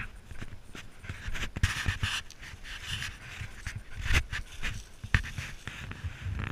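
Dog panting hard close to the microphone, breath after breath, with scattered low thumps and rustles of movement over dry leaves.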